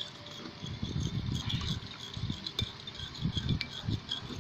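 Slime mixture of glue and mouth-cleaning solution being stirred in a bowl, already thickening: soft, irregular stirring strokes with light clinks of the utensil against the bowl.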